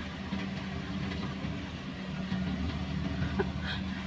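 Kubota combine harvester's diesel engine running steadily, a low even hum.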